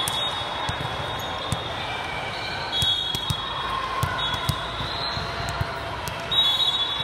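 Indoor volleyball hall: irregular dull thumps of volleyballs being struck and bouncing, with short high squeaks over a steady hubbub of the hall.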